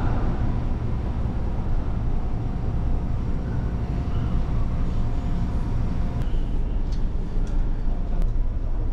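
Steady low rumble of a large car ferry under way, its engines and hull vibration heard inside the passenger deck, with a faint steady hum over it. A few light clicks come near the end.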